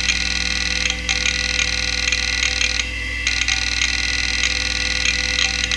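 Quantum Bigfoot CY 3240AT 5.25-inch hard drive seeking almost without pause while Windows 98 loads: a dense buzzing chatter of head movements over the steady hum of its spindle, broken by two brief lulls, about a second in and about three seconds in. The drive is failing, on its last legs.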